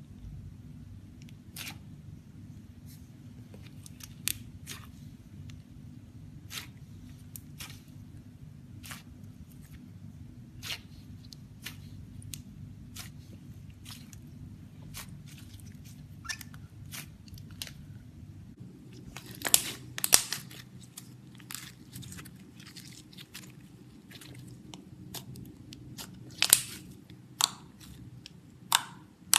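Gold foil slime being mixed and squeezed by hand, giving irregular sharp clicks and pops over a low steady hum. The pops grow louder and more frequent about two-thirds of the way in.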